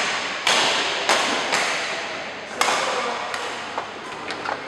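Badminton rackets striking a shuttlecock during a rally: five sharp hits in the first three and a half seconds, each ringing out in a large echoing hall, then fainter taps near the end.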